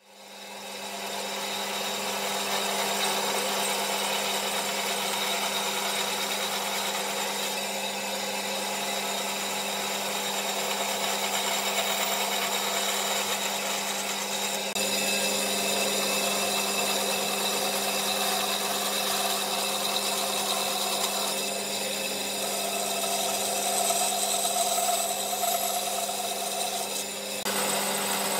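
Band saw running with a steady hum while its blade cuts into the end of a pine board, following pencil lines.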